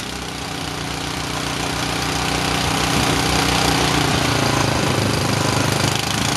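Go-kart's small four-stroke engine running steadily, now warmed up after a cold start in the snow. It gets somewhat louder over the first three seconds.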